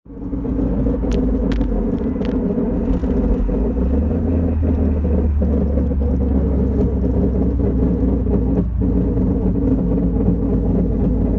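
Subaru STi on the move with a steady, loud grinding rumble from the rear wheel hub area, a few sharp ticks in the first couple of seconds. The owner takes the grinding for a rear wheel hub fault; on that drive he found the right rear disc and hub red hot from friction.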